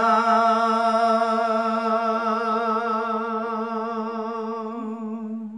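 An elderly man's unaccompanied voice singing a Gojri bait, holding one long note at the end of a verse line with a gentle vibrato. It slowly fades and breaks off near the end.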